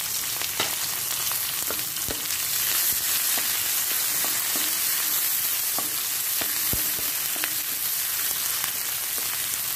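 Sliced onions sizzling as they fry in hot oil in a kadai on a medium flame. A wooden spatula stirs them, with scattered short clicks and scrapes against the pan.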